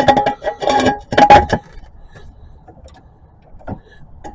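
A quick run of metallic clicks and clinks with a ringing tone in the first second and a half, then a few fainter knocks.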